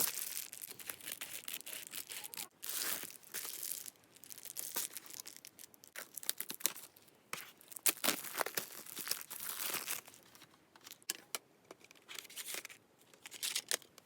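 Packaging being torn open and crinkled by hand while unboxing a set of coloured pencils: irregular rips and rustles with short pauses and a few sharp clicks.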